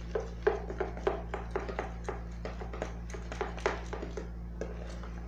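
Slime mixture of glue and shaving foam being stirred in a container: a run of short, irregular squishy taps, several a second, that stop near the end.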